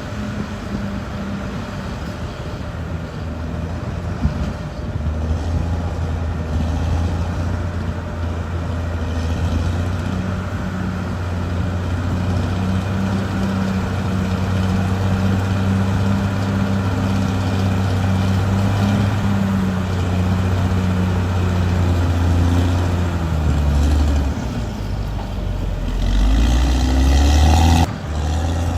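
A heavy earthmoving machine's diesel engine runs steadily at a working pace. In the last few seconds its pitch wavers and climbs and it gets louder, then it cuts back sharply just before the end.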